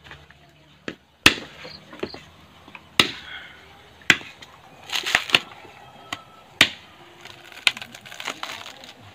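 Machete chopping into a coconut's fibrous husk to strip it: sharp strikes at an uneven pace of roughly one a second, with three in quick succession about five seconds in.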